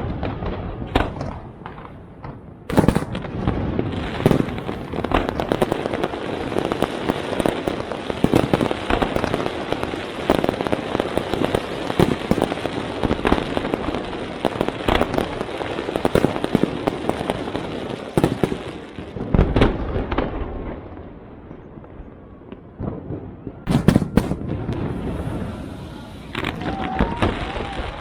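Fireworks display: a dense barrage of sharp bangs and crackling that eases off about twenty seconds in, then loud bangs start again near the end.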